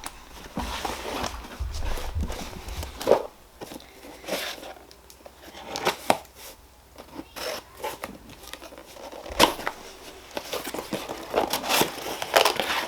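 A cardboard shipping box being opened by hand: tape tearing and packing crinkling, in irregular rustles with sharp clicks and knocks.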